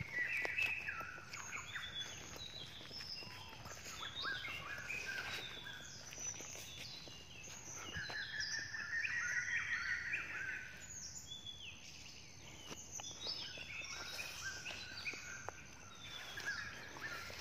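Several birds chirping and singing at once, many short whistled notes at different pitches overlapping, with a few faint clicks.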